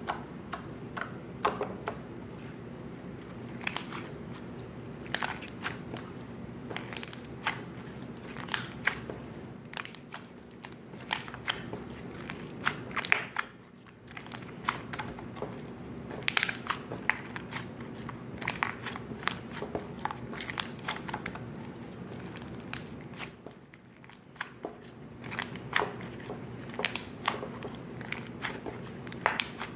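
Slime being squeezed and pressed by hand, giving irregular sticky pops and clicks as trapped air bursts, with two short lulls about 14 and 24 seconds in.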